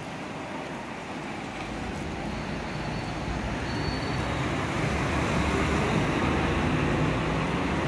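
Hino Selega highway coach's diesel engine pulling away from the bus bay and driving close past, growing louder as it goes by, heard through the shelter's glass.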